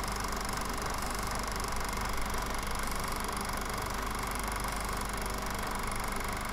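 Film projector running: a steady mechanical whir with a low hum, unchanging throughout.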